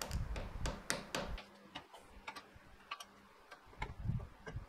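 Irregular light metallic clicks and taps as metal parts of a milling machine's feed gearbox are handled and fitted by hand. Several come close together in the first second or so, then scattered single ticks follow.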